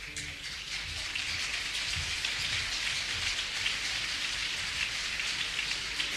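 Theatre audience applauding, a dense patter of many hand claps that swells over the first second and then holds steady.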